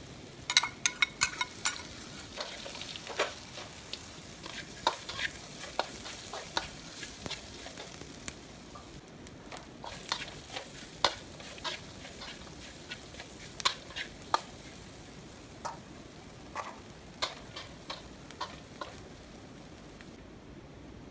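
Deep-fried soy meat being stir-fried with herbs and chili: a steady sizzle in the pan, with frequent sharp clinks and scrapes of a utensil against the pan. The clinks come in a quick run just after the start, then at scattered intervals.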